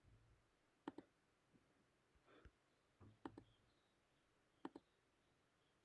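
Faint computer mouse clicks, three of them a second or two apart, each a quick press-and-release pair, against near silence.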